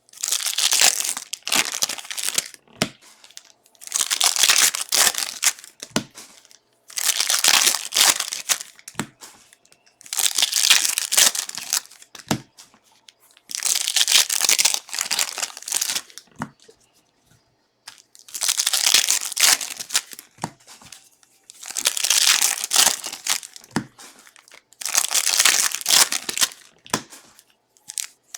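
Plastic trading-card wrappers crinkling and tearing as a box of 2022 Contenders football cards is unwrapped and its packs ripped open, in about eight rustling bursts a few seconds apart.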